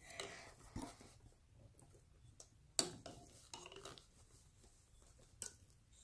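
Faint stirring of slime in a bowl with a mixing spoon, broken by a few sharp clicks of the spoon against the bowl.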